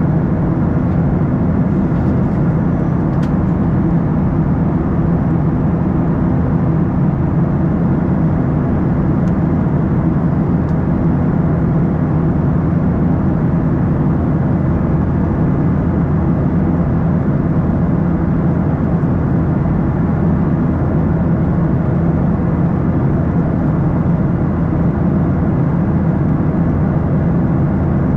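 Steady in-flight cabin noise of a Boeing 737-800 heard from a window seat beside the wing: a low, even drone of its CFM56-7B turbofan engine and the air rushing past, with no change in pitch or level.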